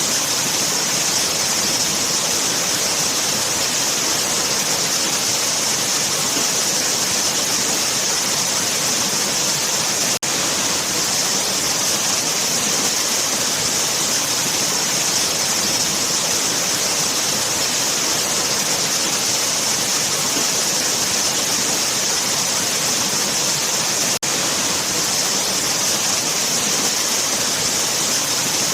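Waterfall: water falling and rushing in a steady, loud, hissing roar. It dips very briefly twice.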